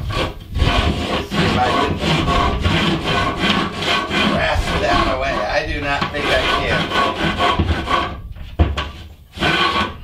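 Hardie cement board scraping and rubbing as the sheet is worked to fit a tight opening. The rough, rapid scraping runs for about eight seconds, breaks off, then comes in two short scrapes near the end.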